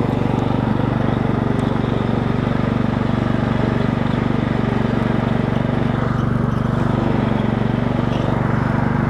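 Craftsman LT4000 riding lawn tractor's engine running steadily at throttle while towing a trailer, its pitch holding even throughout.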